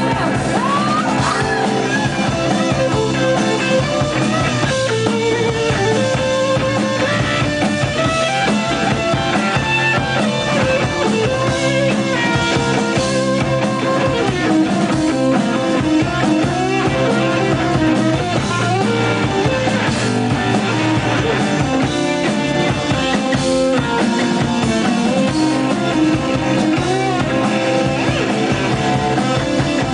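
Live rock band playing a song: guitar over a steady drum kit, loud and continuous.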